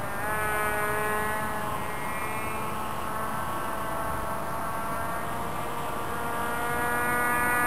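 Radio-controlled model airplane (a 600 Mini Pop) flying, its motor and propeller making a continuous whine. The pitch drops just after the start, wavers up and down as the plane passes and turns, and the sound grows louder near the end.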